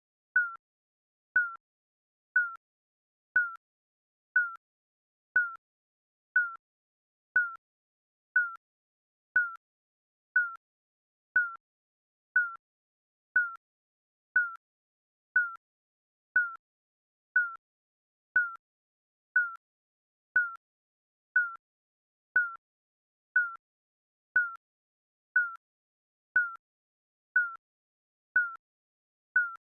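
Digital countdown timer beeping once a second: a short, clean electronic beep with a slight downward slide in pitch, repeating evenly.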